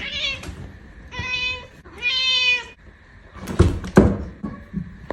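A cat meowing twice, two steady high-pitched meows about a second apart, followed by two loud thumps.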